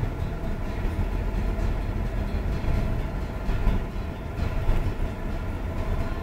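Steady low rumble of road traffic and the car's own engine, heard from inside a car creeping forward in a queue.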